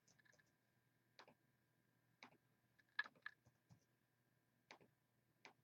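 Faint, scattered clicks of a computer mouse and keyboard, about seven at irregular intervals, over a faint steady hum.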